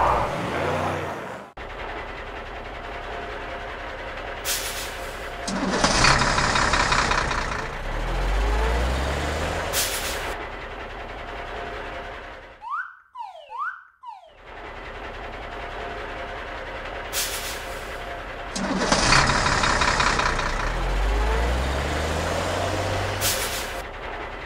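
Cartoon vehicle sound effects: truck engines running and revving, with short air-brake hisses. The same run of sounds plays twice, split about halfway by a brief break of quick sliding tones.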